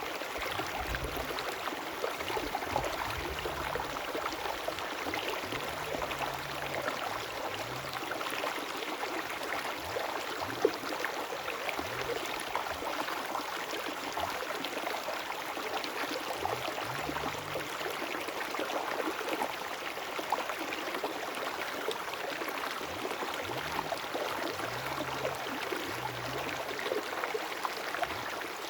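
River water flowing and babbling steadily, an even rush of running water, with one brief sharp click about ten seconds in.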